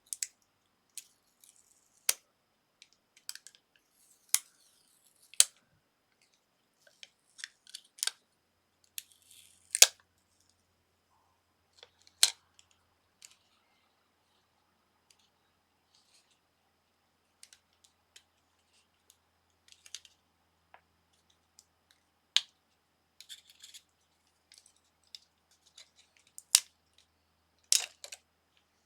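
Small plastic and metal phone parts being handled and pulled apart: sharp, irregular clicks and snaps, a dozen or so, with light scraping between them.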